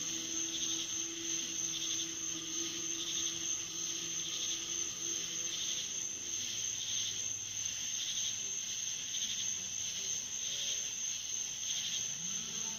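Night insect chorus of crickets: a steady high trill, with a second, lower insect call pulsing in short repeated bursts, over a faint low steady hum. A low rising tone comes in near the end.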